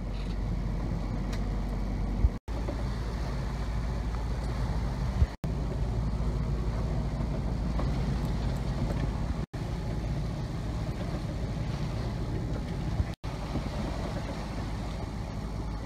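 Wind buffeting the microphone and water rushing along the hull of a sailboat under way, a steady rumbling noise. It is broken four times by abrupt momentary dropouts where short clips are joined.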